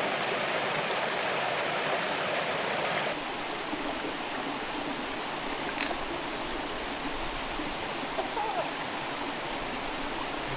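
Rushing water running steadily, with a slight drop in level about three seconds in and a single sharp click near the middle.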